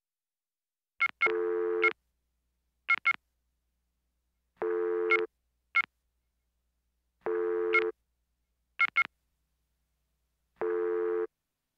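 Electronic beeps: quick pairs of short high bleeps alternating with a buzzy low tone about half a second long, which comes four times with dead silence between.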